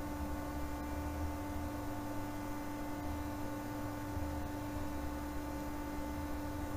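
Steady electrical hum and hiss of the recording's background: two constant tones with a wavering low rumble beneath and an even hiss, and no other sound.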